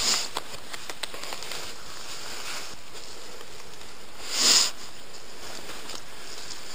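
Steady rustling and scraping of dry leaf litter as a dead wild boar is dragged through the woods, with one short, louder rush of noise about four and a half seconds in.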